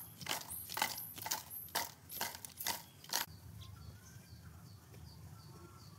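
Crispy fried potato pieces rattling in a plastic container as it is shaken, in about eight sharp shakes over three seconds. Then a faint high chirp repeats about twice a second.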